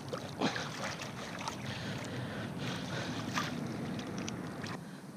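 A pike of about 5 kg splashing in shallow water as it is held and released by hand: irregular splashes and sloshing from the fish and hands. The splashing stops suddenly near the end.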